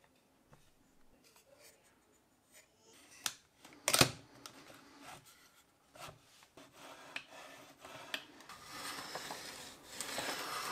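Wooden and metal workshop parts being handled: light clicks and taps, a sharp knock about four seconds in, then a few seconds of rubbing as a plywood carriage slides along a steel guide rod.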